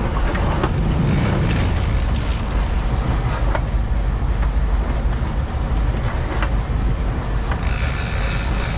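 Sportfishing boat running during a fish fight: a steady low engine rumble with rushing water, and two spells of brighter hiss, about a second in and near the end.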